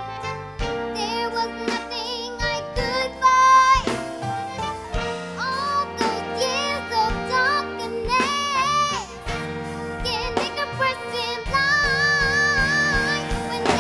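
A young girl singing a soulful ballad solo over instrumental accompaniment, ending on a long held note with vibrato.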